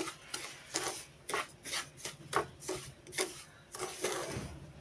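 Wooden spatula scraping and stirring semolina roasting in butter in a nonstick pan: quick rasping strokes, about two or three a second.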